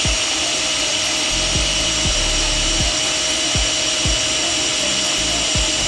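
Makita cordless drill running steadily in low gear with a steady whine, turning the input of a torque multiplier of about 60:1 to work loose a rusted leaf spring hanger bolt. Low pulses come and go under the whine.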